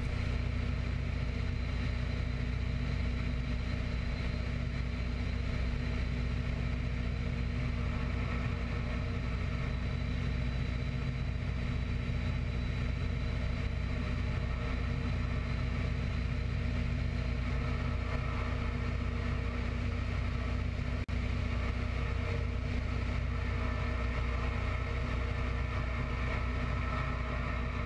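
An open-cockpit biplane's radial engine running steadily in flight, a continuous drone with a brief dropout about two-thirds of the way through.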